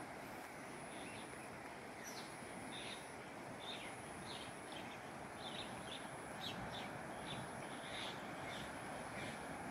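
Birds chirping with scattered short calls over a steady outdoor rush of noise, with a thin, high steady tone above.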